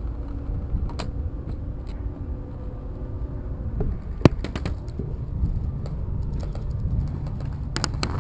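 A steady low rumble with a few sharp clicks or snaps: one about a second in, the loudest just after four seconds with a few quick ones after it, and a quick cluster near the end.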